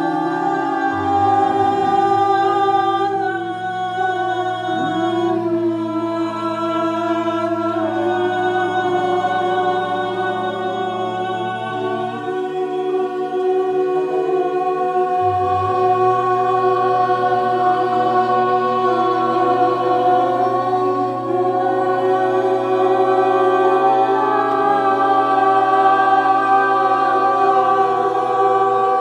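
A group of voices toning together without words, holding long, overlapping notes that blend into one sustained chord, with a low note held underneath.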